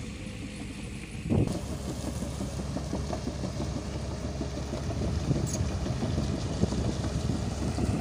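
Caterpillar crawler excavator's diesel engine running steadily, fuller and louder from about a second and a half in.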